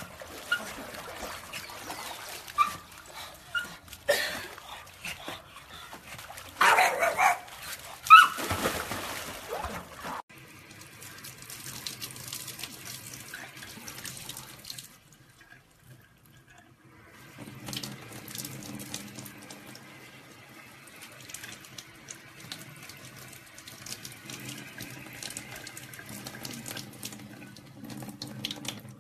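A dog whimpering and yelping with loud splashes in the water for about the first ten seconds. Then, after a brief near-silence, a tap runs steadily into a sink over a black French bulldog puppy.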